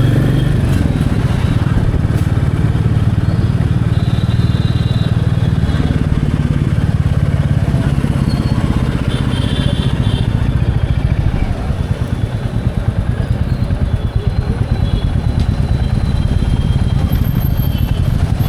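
Royal Enfield Bullet Standard 350's single-cylinder engine running steadily while being ridden, a continuous low exhaust beat, easing briefly about twelve seconds in.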